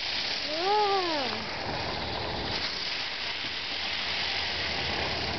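A 'swirling panda' novelty ground firework spraying sparks, with a steady hiss.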